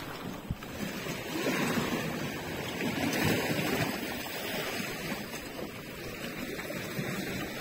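Seawater lapping and washing close by, a steady wash that swells and eases.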